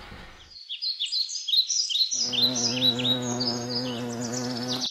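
Birds chirping in short, repeated falling notes, joined about two seconds in by the steady buzz of a bee.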